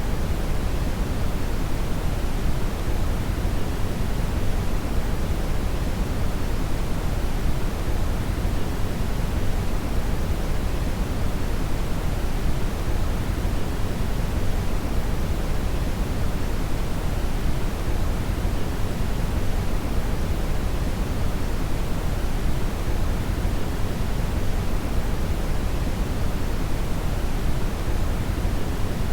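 Synthetic brown (red) noise: a steady, deep rushing hiss, strongest in the lows and thinning toward the highs, unchanging throughout.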